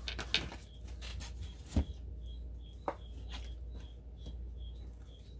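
A few sharp taps and faint rustling, typical of tarot cards being handled and laid down. From about two seconds in, a short high chirp repeats about two to three times a second.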